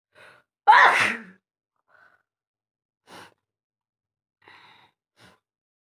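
A woman sneezes once, loudly and suddenly, about a second in, a sneeze she has deliberately provoked. A few faint short breaths follow.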